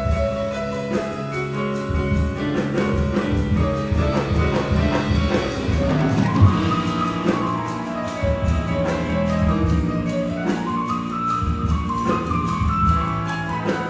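Jazz big band playing: saxophones and brass hold layered chords over drums, while a melody line arches up and falls back twice.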